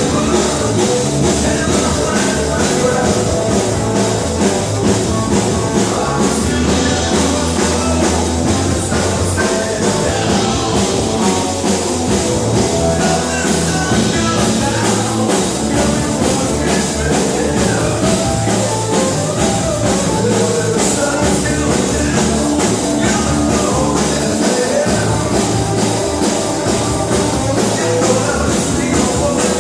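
Rock-and-roll music with a drum kit and guitar, playing steadily.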